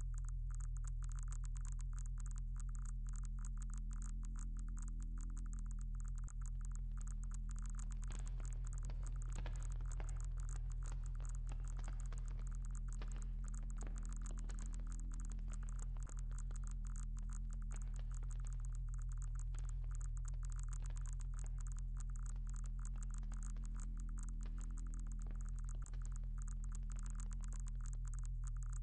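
Electronic drone soundtrack: a steady low hum with a dense crackling, scratchy texture above it, dropping out for an instant three times, about ten seconds apart.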